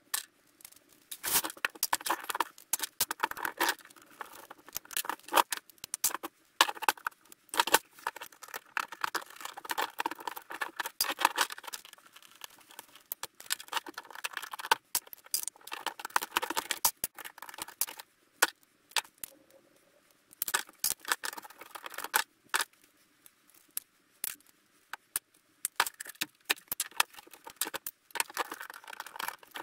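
A VHS player's tape-deck mechanism being taken apart by hand: irregular clicks, scrapes and clinks of a screwdriver working on small metal and plastic parts, and of parts set into a metal parts tray.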